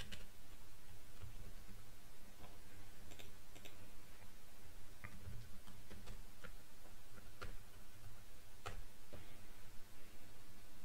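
Scattered single computer keyboard keystrokes, one sharp click every second or so, over a low steady background hum.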